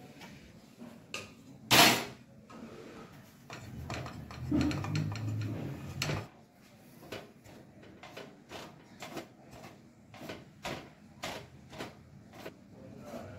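Cookware being handled: a sharp metal clank about two seconds in as the pan meets a steel tray, a dull rustling stretch as dry besan (gram flour) is tipped into the kadhai, then a wooden spatula stirring the dry flour, tapping and scraping the pan about twice a second.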